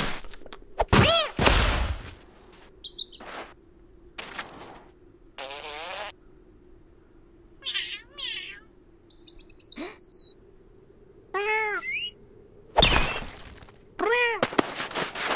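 Cartoon sound effects: a cat's vocalised meows and grunts and a small bird's chirps and twitters, trading back and forth, with a few thuds as the cat tumbles into snow.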